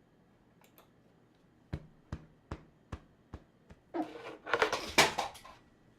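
Six sharp taps or knocks, evenly spaced about 0.4 s apart, then about a second and a half of clattering and crinkling, loudest about five seconds in: objects being handled on a table.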